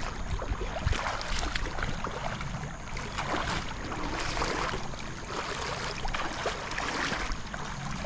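River water splashing and running, with many small crackling splashes over a low rumble of wind on the microphone.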